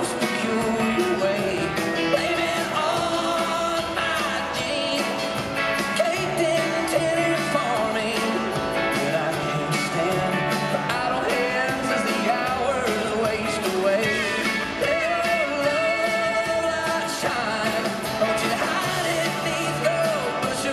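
A live country-rock band playing, with a male lead vocalist singing the melody into a microphone over guitars and a steady bass line.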